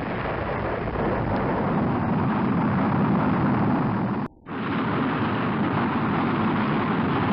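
Rocket launch sound effect: a loud, steady rumble of rocket engines. It drops out for a moment about four seconds in, then carries on.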